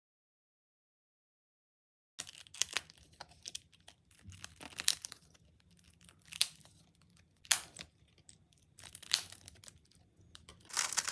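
Digital silence for about two seconds, then scattered plastic clicks and rustles of a Rubik's Cube being turned, becoming fast, continuous turning near the end.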